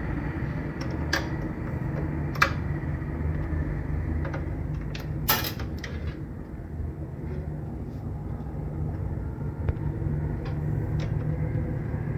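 Scattered metallic clicks and knocks of screws, cable connectors and hand tools being worked on a CT scanner gantry, the loudest a short rattle about five seconds in, over a steady low hum.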